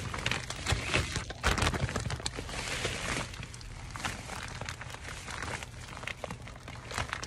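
Shopping bags rustling and crinkling as they are gathered up by hand, with small knocks and clicks of handling. It is busiest in the first couple of seconds, then quieter.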